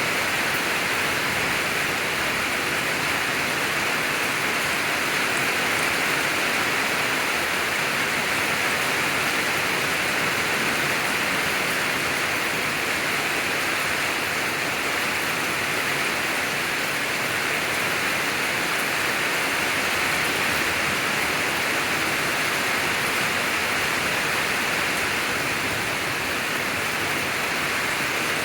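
Rain falling steadily, an even hiss with no breaks or thunderclaps.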